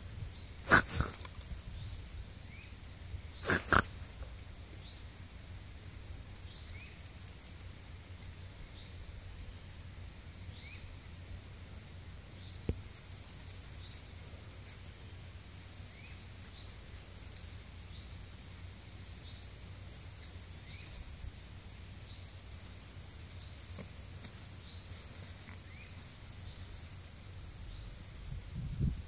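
Young raccoons snorting while they play fight, a few short loud snorts in the first four seconds, over a steady high insect drone.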